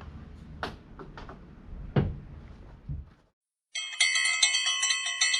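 A low hum with a few sharp clicks and knocks. It cuts to brief silence, and then, about two-thirds of the way in, a bright chiming bell tune starts with quick repeated strikes.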